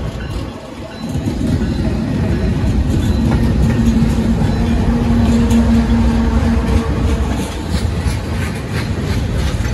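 Freight train's diesel-electric locomotives passing close by, a deep engine rumble that swells about a second in with a steady hum through the middle, followed by the steel wheels of tank cars rolling past.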